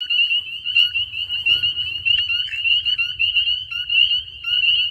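Chorus of spring peepers: many loud, ear-piercing high peeps overlapping, several each second, from frogs calling to mate in spring.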